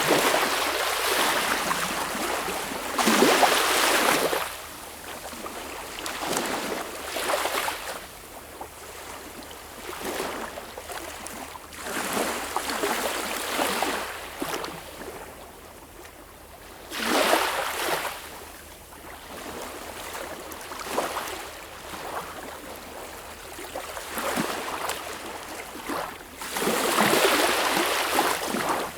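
Sea waves breaking and washing in irregular surges a few seconds apart, the biggest near the start, about seventeen seconds in and near the end, with quieter washes between.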